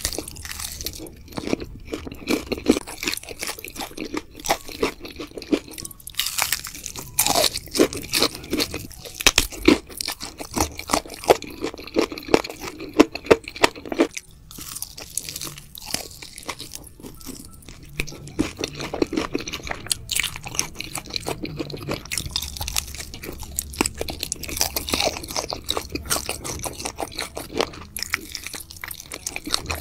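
Close-miked biting and chewing of sauce-coated fried chicken, the crisp coating crunching in dense, quick crackles, with a quieter stretch about halfway through.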